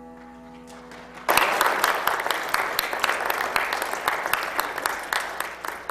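The last held chord of a keyboard piece fades away. Just over a second in, an audience suddenly breaks into applause, which carries on to the end as the loudest sound.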